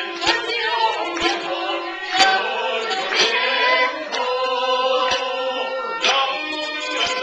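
Music with singing voices over a steady beat that falls about once a second.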